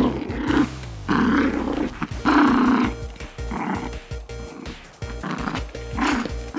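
Small mini bichon dog growling playfully in a series of short growls, about one a second, while tugging on a plush toy in tug-of-war play.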